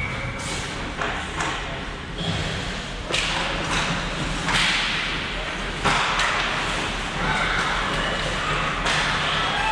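Ice hockey play on a rink: a string of sharp cracks and thuds from sticks, puck and boards, several seconds apart, with stretches of hiss between them.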